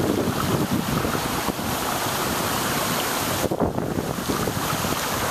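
Wind buffeting the microphone over the sloshing and splashing of bicycles riding through knee-deep street floodwater left by a hurricane storm surge.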